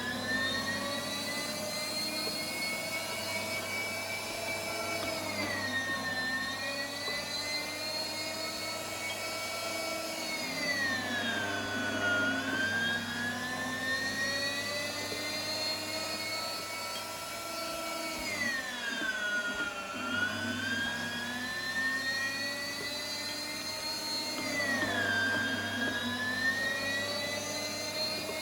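Electric meat grinder motor whining as it grinds nut cookies, with a steady low hum underneath. Its pitch sags and recovers four times, about a third of the way in, near the middle, about two-thirds in and near the end, as the motor slows under the load of the cookies.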